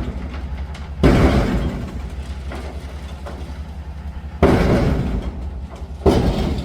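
Three loud bangs over a steady low hum: about a second in, at about four and a half seconds, and near the end. Each one starts suddenly and dies away over about a second.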